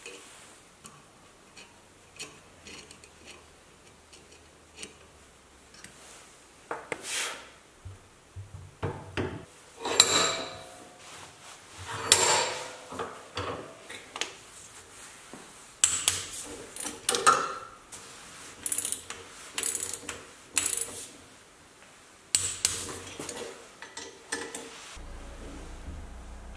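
Spanner and bolts working on a Porsche 911 front brake disc and wheel hub: irregular metal clinks, clicks and clanks as the bolts are turned and the parts handled, the loudest two ringing metal clanks about halfway through.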